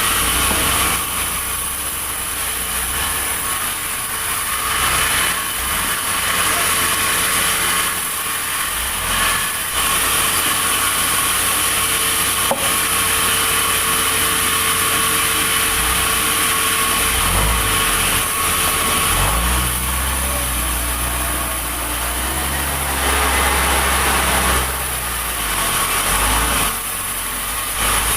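Sawmill saw running and cutting timber: a steady loud machine sound with a high whine, its level dipping and swelling as the cut goes, and a deeper rumble for a few seconds in the second half.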